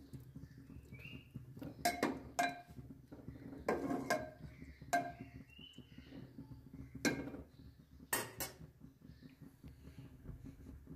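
Metal ladle stirring curry in an aluminium pressure cooker: a series of sharp, ringing clinks and scrapes of metal on the pot, the loudest pair about eight seconds in.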